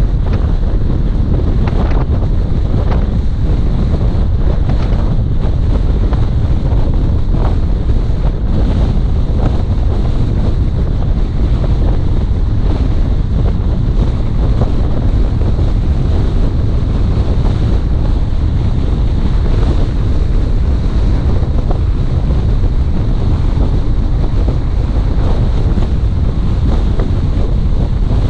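Loud, steady wind noise buffeting the microphone over the low rumble of a car driving along the road.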